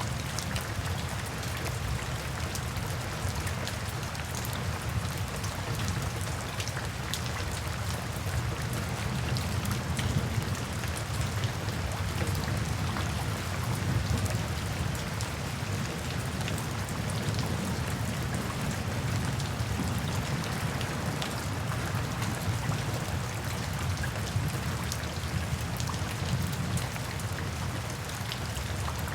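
Steady rain falling, with many individual drops tapping over a continuous wash and a steady low rumble beneath.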